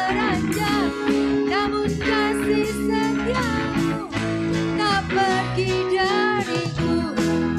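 Live worship band playing: a woman sings the lead melody in Indonesian over electric bass, electric guitar, keyboard and a drum kit.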